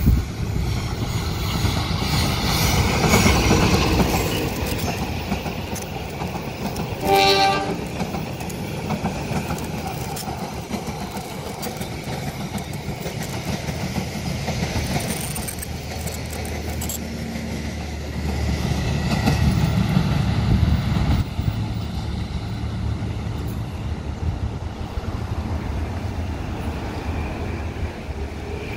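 A train running past, its wheels rumbling on the rails and swelling twice. One short horn blast sounds about seven seconds in.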